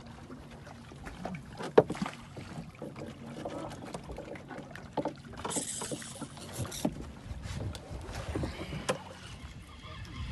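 Sounds aboard a small fishing boat at sea: scattered knocks and clatter over a low rumble of water and wind, with a brief rushing hiss like a splash about five and a half seconds in.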